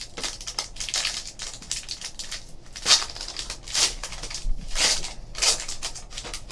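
Trading-card pack wrapper crinkling and tearing as it is handled and ripped open: a run of short crackling rustles, the loudest about three, four, five and five and a half seconds in.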